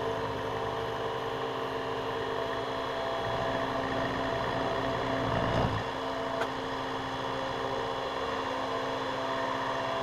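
Sieg X2 mini mill's spindle running with a fly cutter taking a pass across a thin, tall metal workpiece. The cut swells through the middle and peaks in a short loud burst a little past halfway, then settles back to steady running. The workpiece is set up in a way the machinist expects to chatter, and the pass leaves the worst finish yet.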